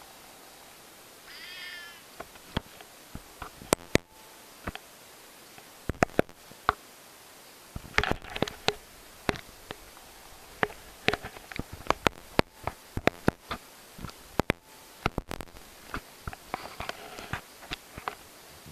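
A cat meows once, short and high, about a second and a half in. Then come scattered sharp clicks and smacks, denser in places, from the cat licking and grooming its paw.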